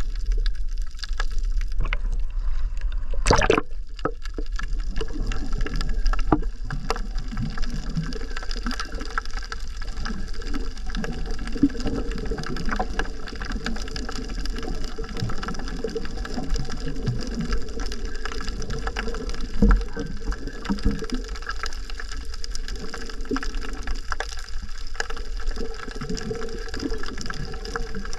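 Underwater sound picked up through a camera's waterproof housing: a steady muffled water rumble with a faint even hum, scattered small clicks, and one sharp knock about three seconds in.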